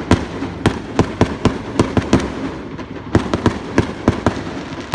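Fireworks bursting overhead: a rapid, irregular series of sharp bangs, about three a second, with a brief lull midway.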